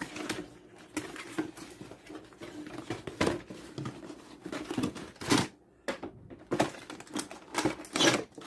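A PC power supply unit being handled: irregular clicks, light knocks and rustling.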